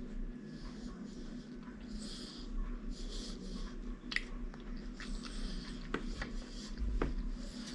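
A three-month-old baby snoring in his sleep, a soft snuffly breath about once a second, with a few light clicks in between.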